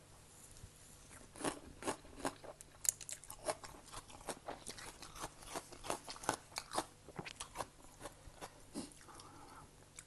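A person chewing a mouthful of spicy Thai seafood salad with glass noodles and fresh greens close to the microphone, with many irregular crisp crunches.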